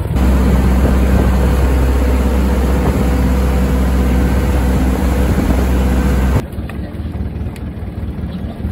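A boat's engine running steadily with a deep low hum, cut off abruptly about six seconds in, after which only a quieter background remains.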